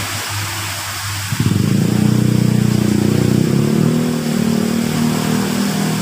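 Water splashing down a small rock garden waterfall into its pool, with a steady hiss. A low engine-like hum comes in loudly about a second in and runs on steadily.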